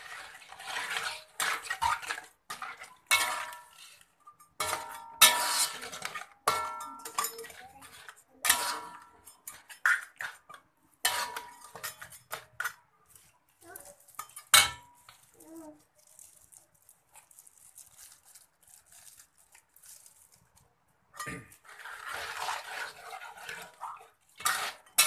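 Metal ladle clanking and scraping against a steel wok while stirring a crab and vegetable broth, the strokes ringing briefly. The clatter dies down about two-thirds of the way through, then starts again near the end.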